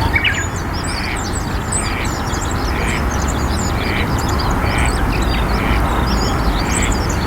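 Eastern spot-billed duck quacking, a soft call repeated about once a second. Many small birds chirp high and thin over a steady low rumble.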